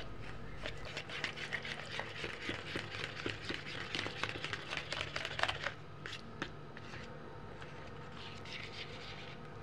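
Metal spoon stirring and mashing thick yogurt in its tub, with quick soft clicks and scrapes of the spoon against the container; the stirring stops just under six seconds in.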